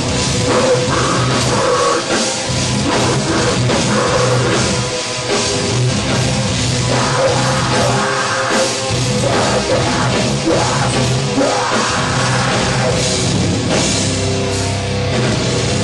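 Death metal band playing live at full volume: heavy distorted guitars over a pounding drum kit.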